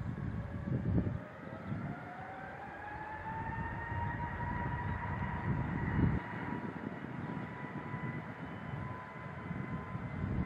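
Airbus A321neo's Pratt & Whitney PW1100G geared-turbofan engines whining as the airliner taxis, the whine rising in pitch over the first few seconds and then holding steady, over a low rumble.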